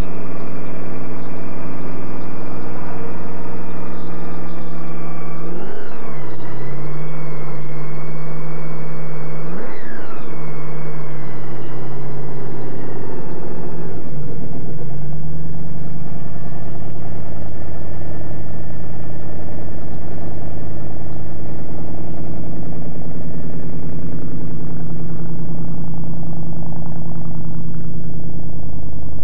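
Supercharged engine in a custom Ford pickup running loud at idle, blipped up and back down twice, about six and ten seconds in. From about halfway it settles to a lower-pitched idle.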